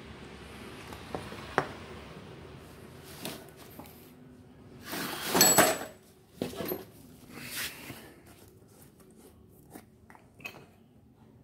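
Metal parts of a rotary hammer drill being handled: scattered clicks and clinks, with a louder scrape and a brief high metallic ring about five and a half seconds in.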